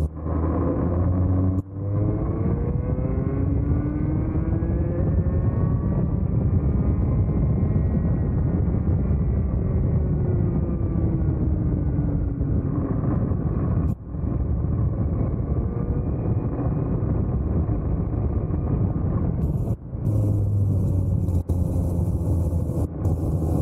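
Vortex Mini ROK 60cc two-stroke kart engine heard onboard at racing speed. Its revs climb steadily while the kart accelerates out of a corner, fall away under braking, and sit low again through a slow corner near the end, with brief dips when the throttle is lifted.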